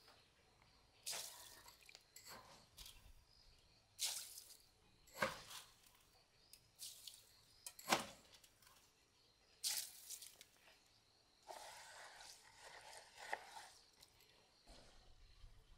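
Sticky rice grains being scooped with a small bowl from a metal basin and poured into a basin of dye water: a series of short, faint rustles and splashes, with stirring near the end.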